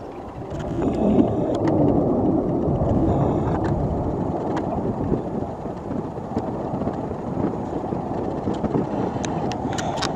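Military fighter jet flying overhead: a steady, dense jet engine roar that swells about a second in and holds.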